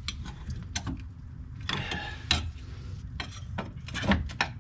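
Metal tools and suspension parts clinking and scraping as the spring plate and its dry rubber bushing are worked off the torsion bar of an air-cooled Porsche 911's rear suspension: a string of irregular knocks and clicks, with a short scrape about two seconds in.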